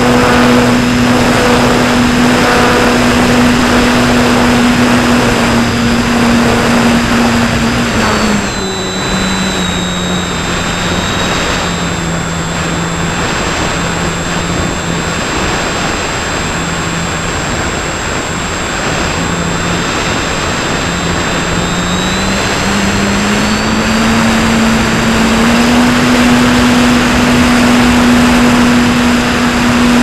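Electric motor and propeller of a Pelikan Gama 2100 electric motor glider, heard from a camera on the model: a steady motor whine over rushing air. The motor slows, its pitch dropping, about eight seconds in, and speeds up again after about twenty-two seconds.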